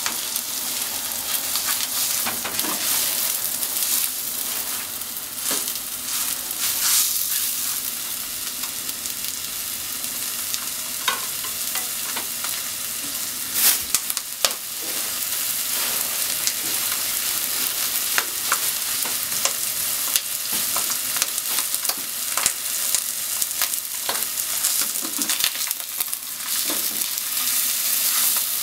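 Meat frying in oil in a nonstick frying pan: a steady sizzling hiss with many small crackling pops. Wooden chopsticks knock against the pan now and then, the sharpest knock about halfway through.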